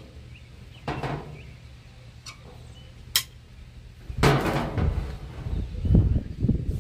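Tasting glasses handled on a table: a soft knock, then a sharp glass clink about three seconds in, followed by muffled bumping and rustling.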